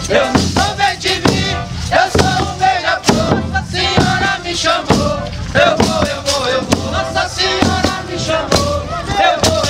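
Catupé congado group singing in chorus to a steady beat of a bass drum and small drums, with tambourines and an accordion playing along.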